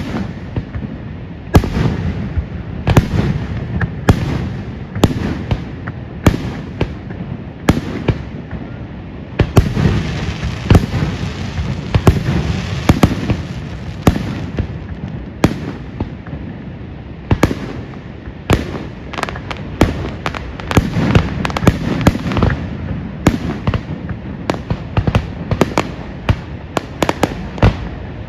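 Fireworks display: a string of sharp bangs, about one a second at first. About ten seconds in comes a few seconds of dense crackling, and the bangs come quicker and denser near the end.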